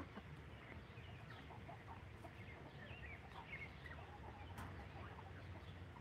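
Faint, distant chickens clucking in scattered short calls over a low rumble.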